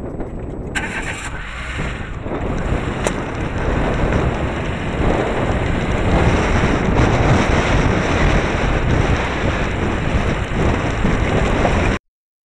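Wind buffeting the microphone of a bonnet-mounted camera on a car driving fast over a rutted dirt track, over the rumble of the car and its tyres, with a few sharp knocks from the bumpy ground. The sound cuts off abruptly near the end.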